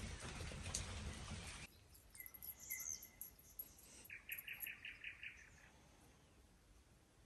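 Small songbirds calling in a quiet garden: short whistled notes and high chirps, then a quick trill of about eight notes about four seconds in. Before that, a steady rushing noise is the loudest sound and cuts off abruptly about a second and a half in.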